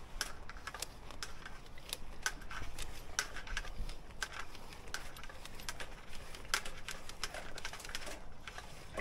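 Sewer inspection camera's push cable being pulled back out of the drain by hand, giving irregular light clicks and ticks, a few a second.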